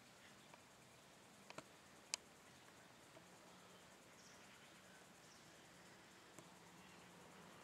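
Near silence: faint outdoor background with a few short, sharp clicks about a second and a half to two seconds in.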